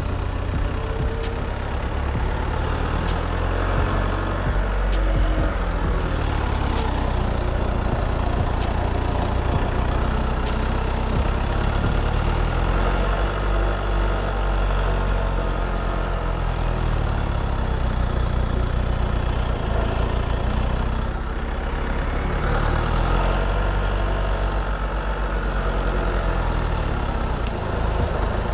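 Heavy machine's diesel engine idling steadily, dipping briefly about 21 seconds in.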